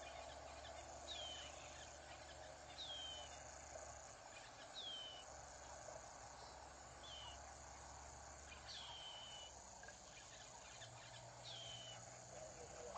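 A bird repeating a short whistle that slides downward, six times at intervals of about two seconds, over a steady high trill of crickets or other insects in the bush.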